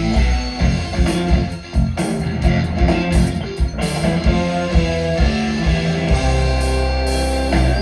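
A rock band playing live, guitar to the fore over bass and drum kit.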